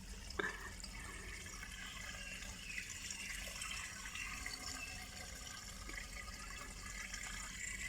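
Dirty wash water draining from a top-load washing machine through its drain hose, a steady flow of water, with one short knock about half a second in.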